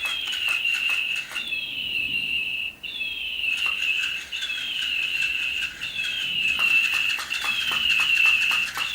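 Battery-powered toy bird making an electronic chirping call over and over, each call dipping slightly in pitch and then holding, about once a second. Rapid clicking from its wing-flapping mechanism runs underneath and gets louder about two-thirds of the way in.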